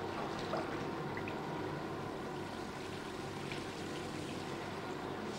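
Whey and curd grains sloshing and trickling in a cheese vat as the curd is stirred and a scoop is dipped into it.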